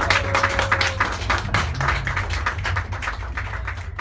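Small audience clapping by hand after a live metal song: a dense patter of claps over a steady low hum. A single held tone dies away about a second in.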